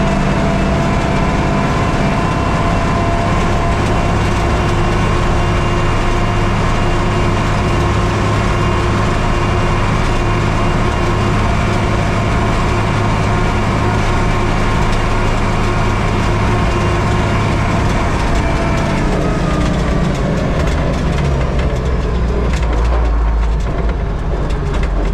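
Tractor engine running steadily while the tractor drives along, heard from inside the cab. Around three-quarters through the engine note drops and a deeper rumble comes up as it slows.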